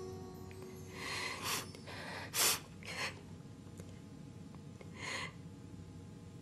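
A few short sniffs and gasping breaths from a person, about five over several seconds, the loudest about two and a half seconds in. The last guitar note dies away at the start.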